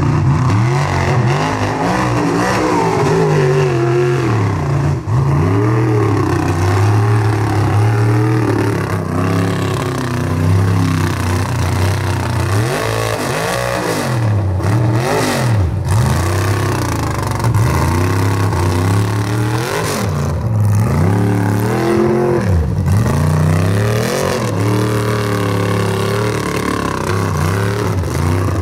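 Mega truck's engine revving hard in repeated bursts, its pitch sweeping up and then dropping many times over a steady low drone.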